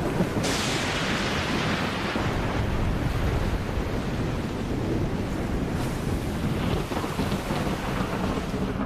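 Storm at sea: wind and heavy waves buffeting a small fishing boat, with water lashing its cabin windows, as one dense, steady rush. A louder, higher rushing surge comes about half a second in.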